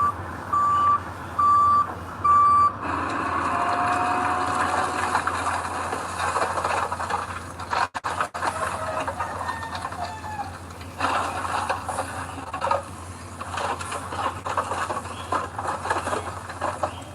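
A construction vehicle's reversing alarm beeps steadily, one even tone repeating, and stops about three seconds in. After that, heavy machinery runs with a steady low engine hum and irregular clattering.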